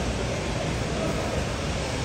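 Aircraft engine noise: a steady, even rushing sound that holds level throughout.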